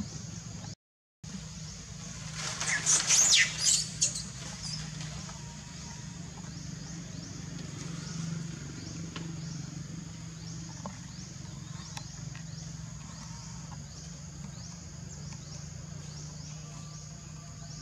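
Forest ambience: a steady low hum under rapid, evenly repeating high chirps. About two to four seconds in, a brief loud burst of high-pitched animal calls stands out. The sound drops out completely for a moment just before a second in.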